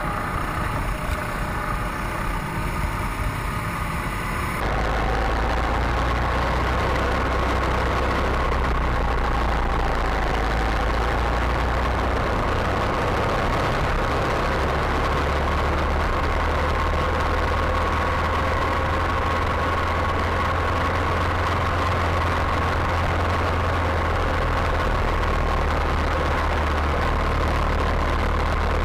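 Go-kart engine running at a steady, near-constant pitch with a low rumble; the sound changes abruptly about four and a half seconds in.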